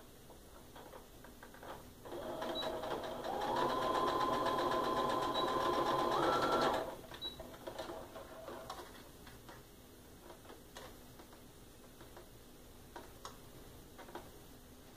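Electric sewing machine stitching a seam for about five seconds, its motor speeding up in steps before it stops abruptly. Faint clicks of fabric and machine handling follow.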